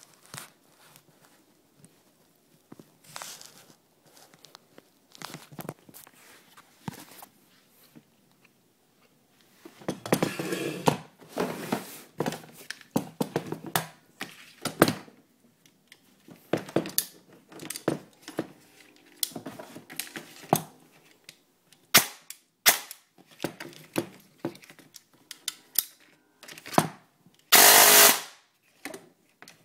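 Airsoft electric gun (AEG) firing through a MOSFET trigger unit: sharp single shots and short bursts, with longer full-auto strings about ten seconds in and near the end. The first nine seconds hold only faint clicks.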